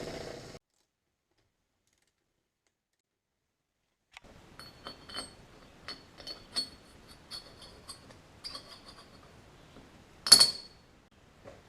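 A power tool running briefly and cutting off, then dead silence, then a series of light metallic clinks and taps of steel CV joint parts being handled, with one much louder ringing clink near the end.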